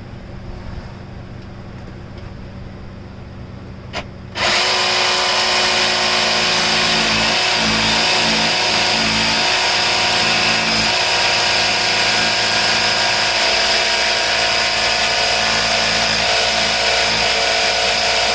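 Electric power tool starts suddenly about four seconds in and runs at a steady, loud, constant speed while making the last cut through the countertop. A short click comes just before it starts.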